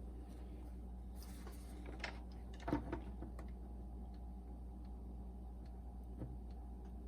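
A few small clicks and taps from handling the boombox's internal cable connectors and plastic parts, the loudest pair a little under three seconds in, over a steady low hum.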